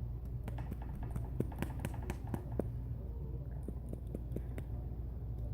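Irregular light clicks and taps from handling a small glass bottle of nail lacquer, over a low steady hum.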